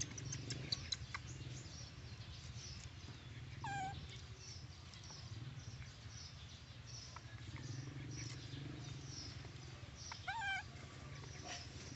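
A baby monkey gives short, high, wavering squeals twice, once about four seconds in and louder near ten seconds. Faint high chirps and a low steady hum lie underneath.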